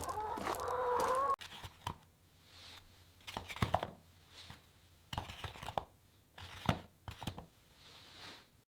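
Chickens clucking, cut off abruptly about a second and a half in, followed by faint scattered rustles and clicks.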